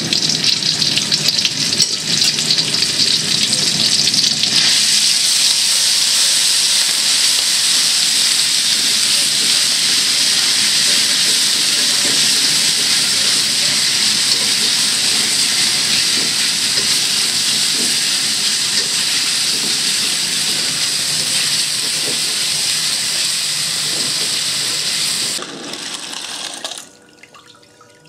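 Ground spice paste with lemongrass frying in hot oil in a stainless steel wok, a loud steady sizzling hiss as it is stirred with a spatula. The sizzle falls away in two steps near the end.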